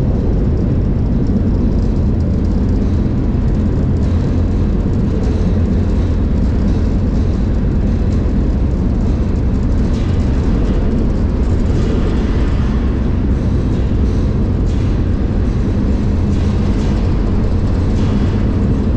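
Steady, loud low rumble of a moving freight train heard from aboard one of its cars, with faint clicks and rattles coming in from about halfway through.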